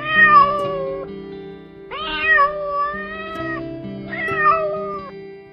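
Domestic cat meowing three times, the middle meow the longest, over background music.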